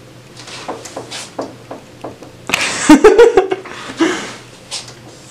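Dry-erase marker squeaking in short strokes on a whiteboard, followed about two and a half seconds in by a loud brief burst of clatter with a short voice sound, and a smaller one near four seconds.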